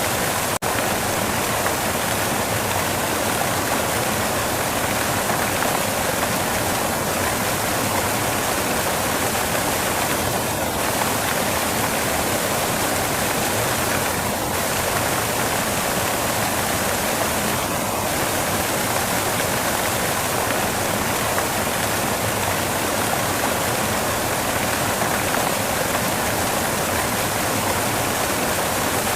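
Steady white-noise hiss spread evenly from low to very high pitches, like rushing water, with a momentary dip about half a second in.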